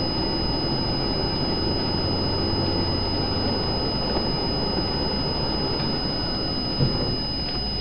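Steady road and engine noise of a moving vehicle, with a thin high whine over it.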